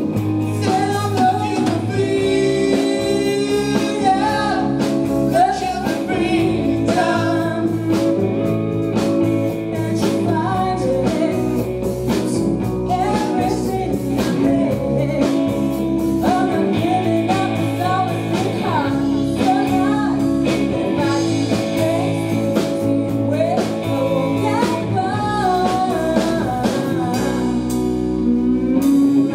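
Live band playing a song: a woman singing over electric guitars, bass guitar and drums.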